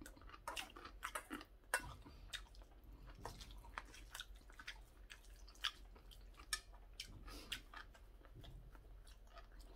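A person chewing a mouthful of curry rice, with irregular wet mouth clicks, and a metal spoon scraping and clinking in a stainless steel bowl as more is scooped up.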